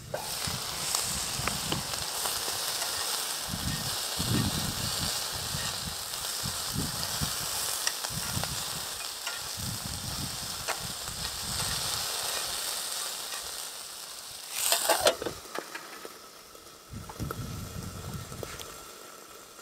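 Food frying in a stainless steel pan on a portable gas stove: a steady sizzle that starts suddenly as the food goes into the hot pan. There is a brief clatter of utensils against the pan about fifteen seconds in, and the sizzle is quieter after that.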